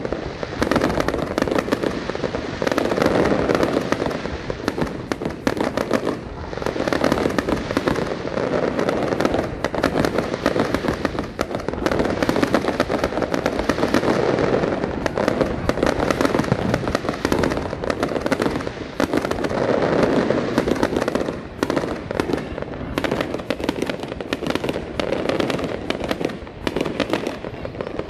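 Aerial fireworks display: a continuous barrage of shell bursts and crackling, bang after bang with no pause.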